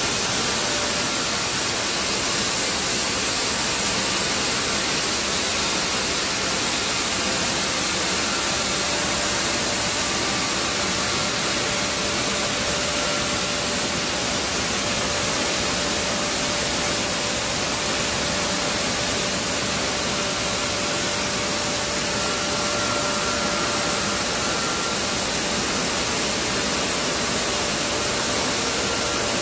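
Flour mill plant machinery running: a steady hiss of motors, fans and air with a faint steady hum tone under it.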